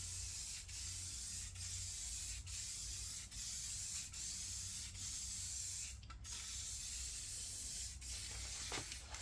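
Aerosol spray can of Rust-Oleum red oxide primer hissing in repeated short passes, with brief breaks about once a second and a longer pause about six seconds in.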